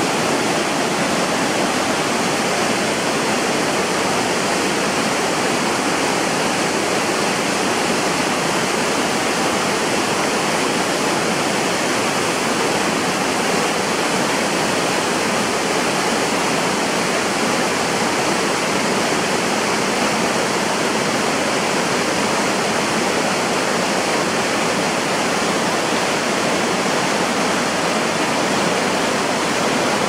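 Large waterfall pouring, a steady, unbroken rush of falling water.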